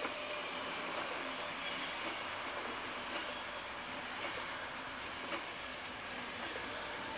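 SBB double-deck passenger train with an Re460 locomotive passing at speed: a steady rush of wheels rolling on the rails, with a few faint clicks.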